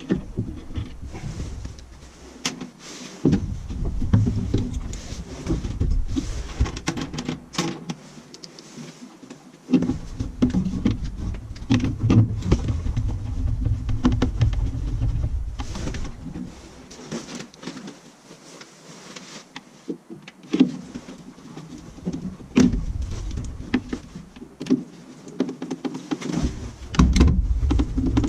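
Cordless power driver running in several stretches of a few seconds each, driving screws to fasten a furnace inducer motor in place, with clicks and clatter of parts and tools in between.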